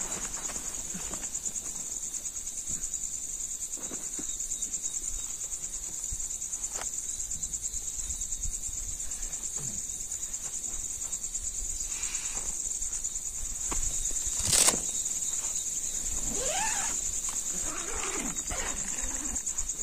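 Crickets chirring in a steady, high, unbroken drone. Scattered faint knocks and rustles sound over it, with one sharp click about three-quarters of the way through.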